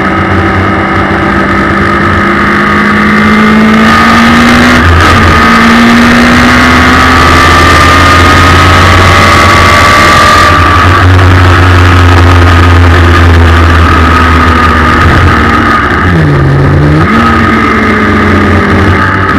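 Suzuki Hayabusa 1300 inline-four motorcycle engine in a small race car, heard onboard at full throttle through its Akrapovic exhaust: the revs climb with a gear change about five seconds in, keep pulling along the straight with wind rush, then drop sharply and pick up again around sixteen seconds in.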